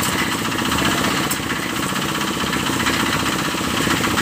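Engine-driven portable drum concrete mixer running steadily with a fast, even pulse, its tilted drum discharging wet concrete for a slab pour.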